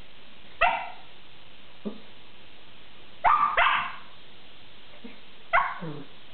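A dog giving short, sharp play barks, four in all, two of them close together in the middle; the last trails off falling in pitch.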